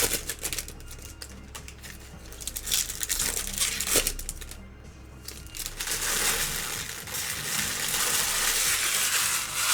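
Trading-card pack wrappers crinkling while cards are handled, with music playing in the background. A dense, steady crinkling fills the second half.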